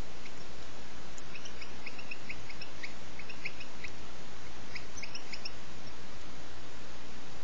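European goldfinch nestlings, six days old, begging with rapid, short high cheeps while the female feeds them. The calls come in two bouts: one starting about a second in and lasting a couple of seconds, and a shorter one around five seconds in. A steady hiss runs underneath.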